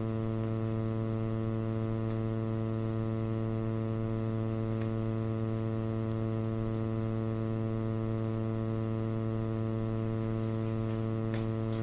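Steady electrical mains hum, a stack of even tones with a buzzy edge, with a few faint clicks.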